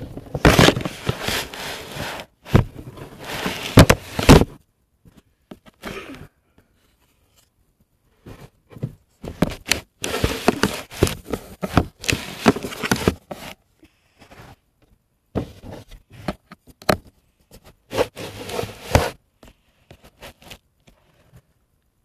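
Handling noise right at the microphone: loud bursts of rustling and scraping with sharp clicks, in three stretches with quiet gaps between them.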